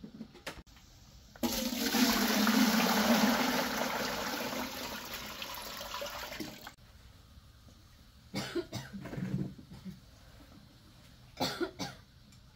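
Water rushing for about five seconds, starting suddenly and cutting off abruptly, then two short rough sounds a few seconds apart.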